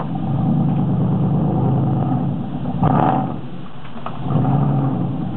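A 318 V8 engine running under throttle. It eases off a little after three seconds in and picks up again about a second later, with a brief loud burst of noise about three seconds in.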